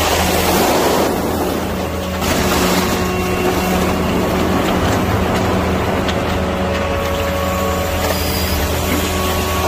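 Grapple crane truck's engine and hydraulic pump running steadily under load as the crane works, with the rustling crunch of loose plastic bottles being dropped and grabbed by the grapple. The rustling swells at the start and again from about two seconds in.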